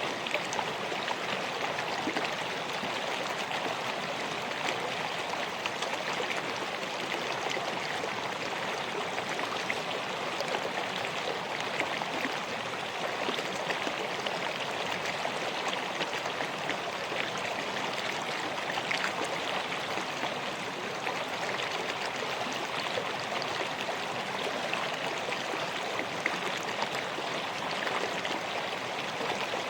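River water flowing steadily over rocks, a continuous rushing with small splashes and gurgles.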